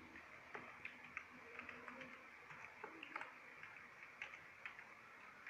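Faint, irregular clicks of computer keyboard keys as an email address is typed.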